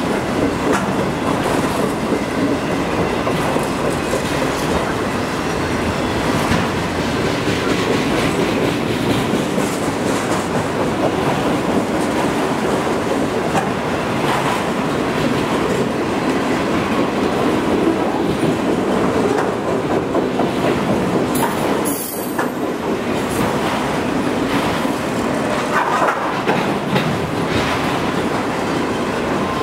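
Freight train of autorack cars rolling steadily past, a continuous rumble of steel wheels on rail with repeated clicks as the wheels cross the rail joints and crossing.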